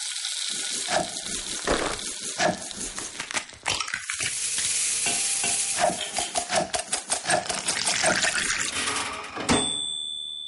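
Kitchen sounds of making an apple tart: stirring and knocking of utensils against bowls and pans in quick irregular clicks over a hiss that swells in the middle. Near the end a thin high beep holds for about a second.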